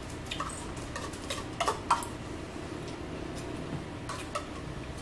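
Plastic fork clicking and scraping on a plate while eating: a handful of short light clicks, the loudest pair a little under two seconds in, over a steady low background hum.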